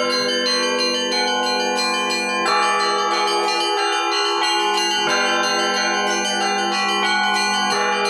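Russian Orthodox church bells rung in a zvon. Small bells chime in a quick repeating pattern over the sustained hum of a larger bell, with heavier strokes about every two and a half seconds.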